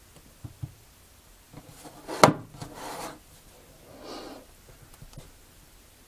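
Handling noise from hands working a phone and small gadget on a tabletop: two soft knocks, a sharp click a little over two seconds in, and short rubbing sounds.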